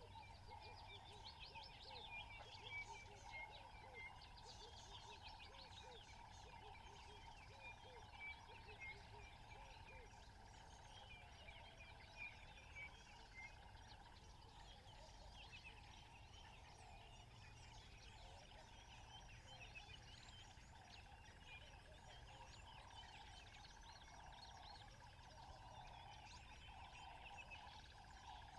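Faint natural ambience of many small birds chirping and trilling, over a steady, faint, higher-pitched drone, with a few slightly louder calls now and then.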